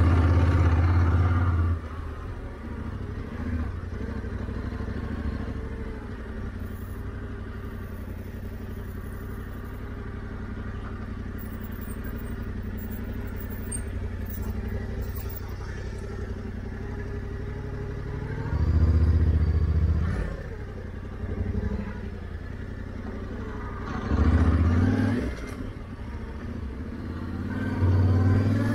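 Yamaha Ténéré 700's parallel-twin engine running under way, mostly at light steady throttle. Four bursts of acceleration stand out, at the start, about two-thirds through, and twice near the end, where the note swells and rises.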